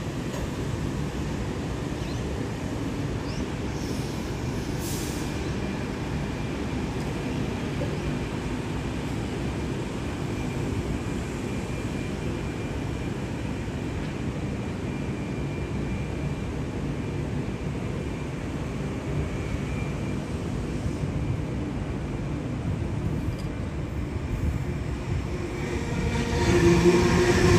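Train running on the tracks with a steady rumble; near the end it grows louder, with a whining tone coming in.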